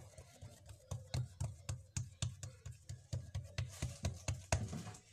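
Hands patting a stuffed hawawshi dough parcel flat on a tabletop: a quick, even run of soft thuds, several a second, that stops shortly before the end.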